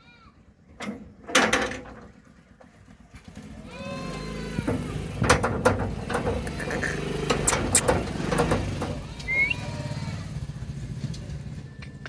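Indian ringneck parrot calling: two loud, sharp cries about a second in, then a run of squawks and pitched calls through the middle, with a short rising chirp near the end. A low steady rumble sits underneath from about four seconds in until shortly before the end.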